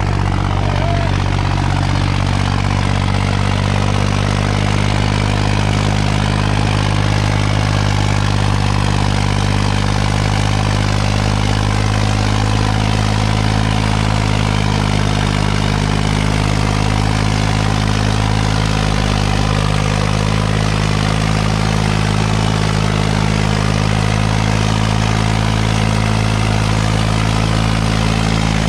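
Farmtrac tractor's diesel engine running loud and steady, pulling a disc harrow in a harrow-pulling contest.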